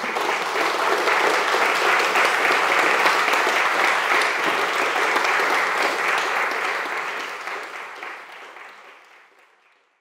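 Audience applauding: dense, steady clapping that dies away over the last few seconds.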